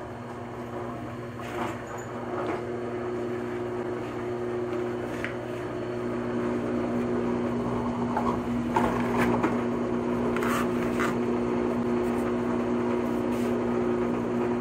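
Benchtop drill press running with a steady motor hum while its bit drills through a Lexan polycarbonate sheet, with short scraping sounds now and then as the bit cuts the plastic.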